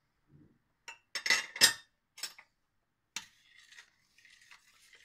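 A metal spoon clinking against a stainless steel pot a few times, then softer scraping as it stirs through tomato sauce.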